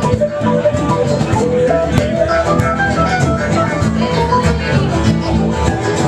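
Live band playing an instrumental passage, a guitar leading over a bass line and regular beats.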